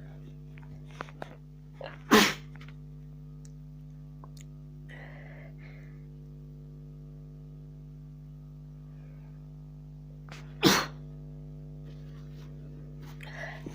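Two sneezes from a woman with a cold, each sudden and short, about eight and a half seconds apart, with faint sharp intakes of breath just before the first. A steady low hum runs underneath.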